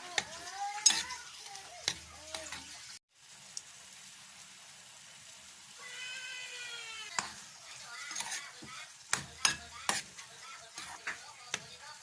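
Chicken liver sizzling as it fries in a pan, with a utensil clicking and scraping against the pan as it is stirred. A cat meows near the start and again for about a second, around the middle.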